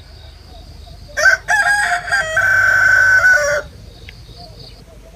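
A rooster crowing once: one long call of about two and a half seconds starting about a second in, its last note held steady.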